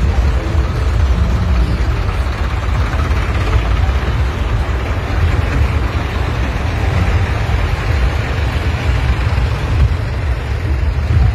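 Diesel tractor engines running steadily on the move, heard from on board a tractor in a column of tractors, with a continuous deep rumble.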